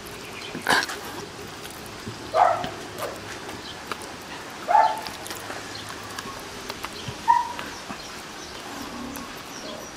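A dog barking four times, a couple of seconds apart, each bark short and sharp.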